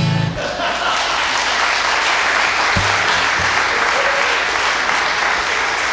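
Church congregation applauding steadily, just after a last musical chord rings out briefly at the start.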